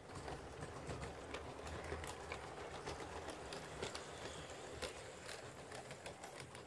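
LGB G-scale model train with passenger coaches running over its brass track: irregular clicking of the wheels over rail joints and points, over a low rolling rumble.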